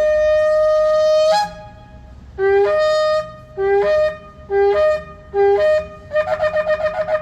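Antelope-horn shofar blown in a series of calls. First comes one long held blast. Four shorter blasts follow, each starting low and jumping up to a higher note. Then comes a rapid run of about eight short staccato notes.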